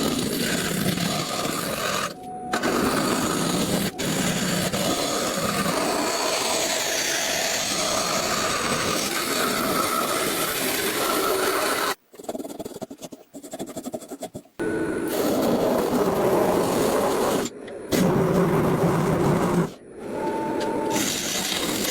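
Power tools working wood, a steady scraping and grinding noise that stops and restarts abruptly several times as short clips follow one another, with a brief near-silence in the middle.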